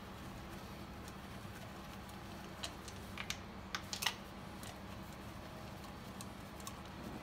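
A handful of light clicks and taps, bunched from about two and a half to four seconds in, as the metal hose fitting of a compression tester is handled and threaded into a spark plug hole, over a steady low hum.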